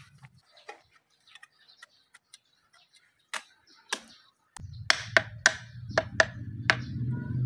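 Sharp metallic clicks and taps as a steel gate hinge and a nail gun are handled and pressed into place against a concrete post: scattered faint ticks at first, then about six loud clicks in quick succession in the second half, over a low steady rumble.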